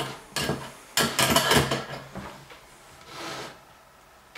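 Short scraping and rubbing sounds, as of objects being slid and handled on a wooden table: a brief one about half a second in, a longer run from about one to two seconds, and a fainter one around three seconds.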